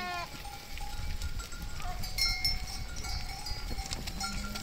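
Bells on a flock of sheep and goats ringing, with a short low call starting near the end.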